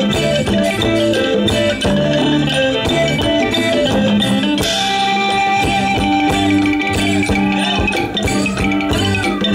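Northeastern Thai (Isan) folk music played by a live band accompanying lam klon verse singing: held chords and melody over a steady beat of struck percussion.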